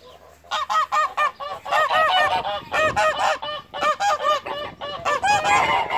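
White domestic geese honking, a bit noisy: rapid, overlapping calls from several birds that start about half a second in and keep coming.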